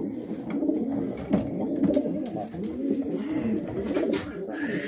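Several racing pigeons cooing at once, their low, rounded coos overlapping continuously, with a few short clicks among them.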